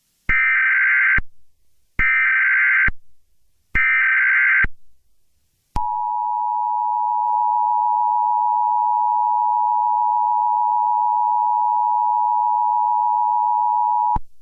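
Emergency Alert System tones: three short bursts of screeching digital SAME header data, about a second each and a second apart, then the two-tone attention signal, a steady dual tone held for about eight seconds, signalling that an emergency broadcast follows.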